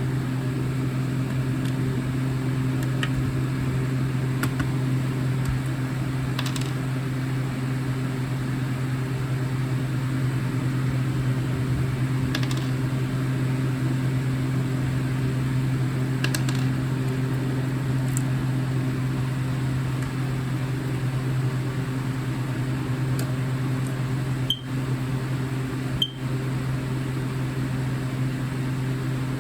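Steady low machine hum, like a fan or motor running, with a few faint ticks and two short clicks near the end.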